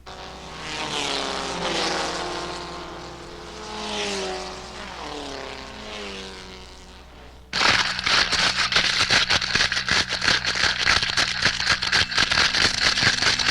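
Novelty sound effect of termites: first a droning whine that swells and slides up and down in pitch like a propeller plane passing overhead, the termites flying. About seven and a half seconds in it cuts suddenly to a dense, rapid crackling and scratching, the termites at work on wood.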